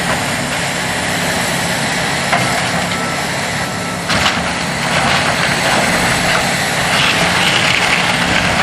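Heavy demolition machine's engine running steadily while the building's wooden structure cracks and splinters, with one sharp crack about four seconds in.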